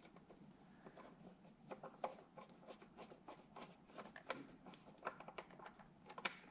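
Faint, irregular small clicks and taps as a metal bulb retainer with its wire clip is fitted onto a headlight projector's bulb socket with a screwdriver. The clicks begin about a second and a half in.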